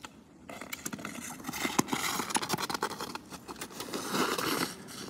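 Ice skate blades scraping and hissing over thin, clear black lake ice, with sharp clicks of ski-pole tips striking the ice. The scraping swells twice, about a second and a half in and again about four seconds in.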